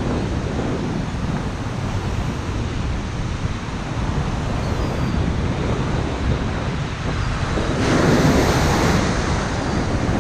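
Ocean surf breaking and washing around, with wind buffeting the microphone in a heavy low rumble. A louder rush of water and wind comes about eight seconds in.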